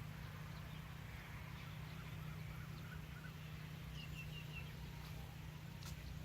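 Faint bird chirps, including a quick run of five short high notes about four seconds in, over a steady low rumble.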